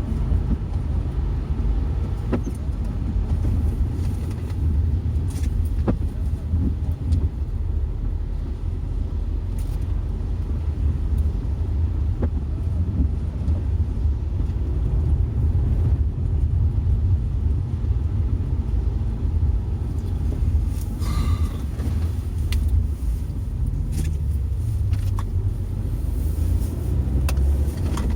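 Car being driven, heard from inside the cabin: a steady low rumble of road and engine noise, with a few faint clicks and a brief higher-pitched sound about three-quarters of the way through.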